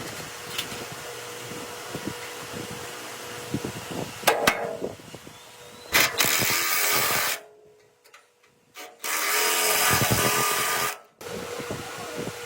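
Workshop tool sounds: light tapping and clicking. Then a power tool runs in two bursts, about a second long and then about two seconds long, each cutting off abruptly.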